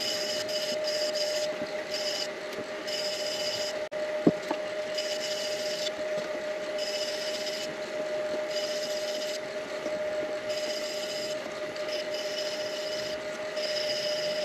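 Midi lathe running with a steady hum while the spinning pen blank is rubbed, the hissy rubbing sound coming and going in spells of about a second, with a single knock a little over 4 seconds in.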